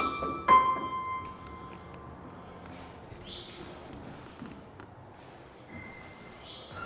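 Steady high drone of insects such as crickets or cicadas, with two ringing struck notes in the first second that fade away, and a few faint knocks of footsteps on the wooden floor.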